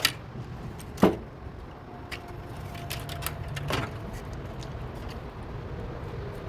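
Sharp clicks and light knocks of a dryer's plastic door-switch assembly and its wire connectors being handled: two loud clicks, at the start and about a second in, then several lighter ones, over a steady low hum.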